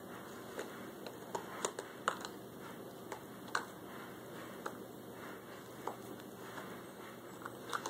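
Irregular light clicks and taps of small hollow plastic shape-sorter blocks being handled and knocked together, about a dozen over several seconds, over faint room hiss.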